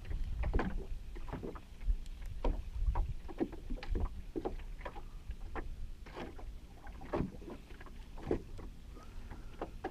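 Small waves lapping and slapping against the hull of a small boat, an irregular splash every half second to a second, over a low wind rumble.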